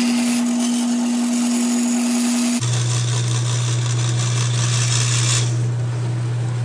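Power tool motor running steadily while cutting the sheet-aluminum tank panel, a hum with a hiss over it. About two and a half seconds in, the hum switches abruptly to a lower pitch.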